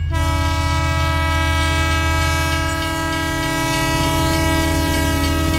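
A toy train's horn sound, one long steady note that begins at once and is held throughout, over a low running rumble from the battery toy steam locomotive on plastic track.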